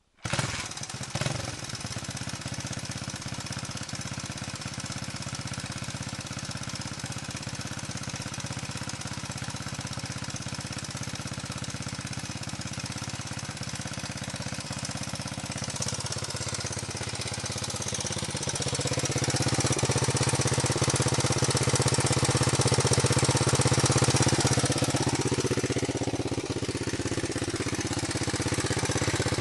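Honda XLS 125 single-cylinder four-stroke motorcycle engine starting up at the very beginning and settling into a steady idle. About two-thirds of the way through it runs faster and louder, with a few small rises and falls in revs near the end.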